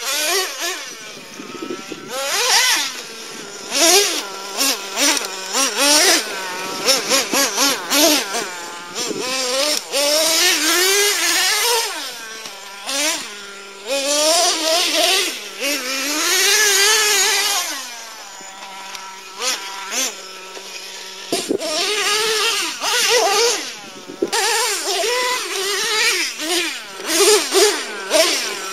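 Traxxas T-Maxx nitro RC truck's modified 3.3 two-stroke glow engine, with a drilled-out resonator pipe, revving up and down in quick bursts as the truck is driven hard. It drops to a steady idle for a few seconds about two-thirds of the way in.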